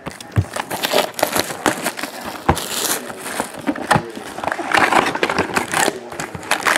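Plastic shrink wrap crinkling and tearing as it is stripped off a sealed trading-card box, in a dense run of crackles, followed by the cardboard box being opened and the foil-wrapped packs handled.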